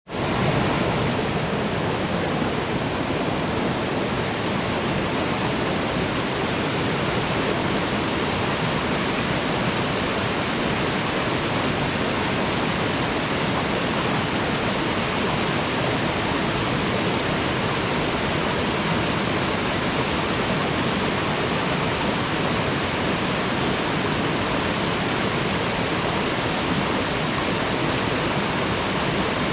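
Waterfall: a steady, even rush of falling water that fades in at the very start and then holds unchanged.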